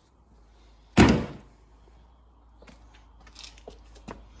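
A single loud thunk against the car body about a second in, then a few light knocks and clicks.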